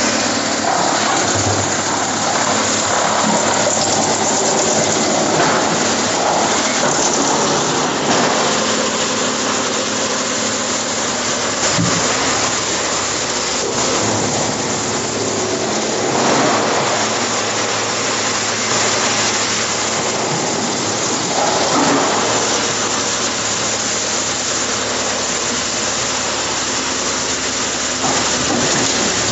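Electric-driven industrial drum wood chipper running loud and steady with a low hum, chipping log sections fed in on its conveyor; the noise swells louder a few times as wood goes through.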